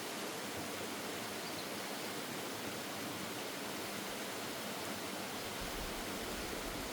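Steady rushing of a waterfall, with a low rumble joining in near the end.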